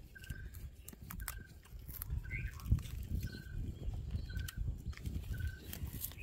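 A bird repeats a short, single-pitched call about once a second, over a low rumble and a few sharp clicks.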